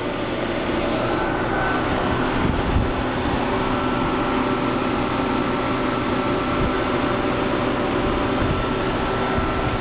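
Air-conditioning unit running: a steady fan and motor hum with a few faint held tones over it.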